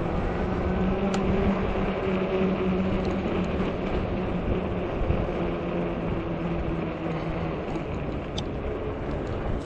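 Fat-tire e-bike's electric hub motor giving a steady whine under a constant rush of wind and tyre noise; the whine fades out about three-quarters of the way through, with a few light ticks along the way.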